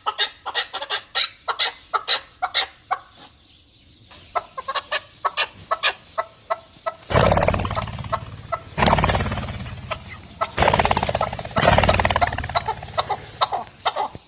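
Fowl clucking in quick short calls, several a second. About halfway through, louder stretches of noise come in under the calls.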